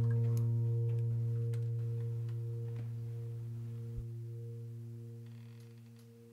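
A low sustained musical note with several overtones, the final note of the background music, ringing and slowly fading away. A few faint ticks sound in the first three seconds, and a soft thump comes about four seconds in.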